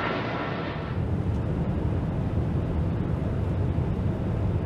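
Boeing 747-8's four turbofan jet engines at takeoff power, heard from the ground as a steady, deep rumble while the jet climbs away.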